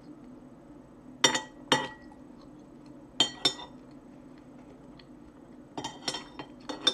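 Metal spoon clinking against a soup dish in sharp, ringing taps: a pair about a second in, another pair about three seconds in, and a quick run of about four near the end.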